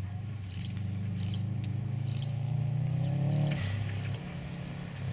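Subaru Impreza wagon's flat-four engine pulling hard across a grass rallycross course, its note rising steadily for about three and a half seconds and then dropping off suddenly as the driver shifts or lifts. A few short, high ticks sound over it in the first half.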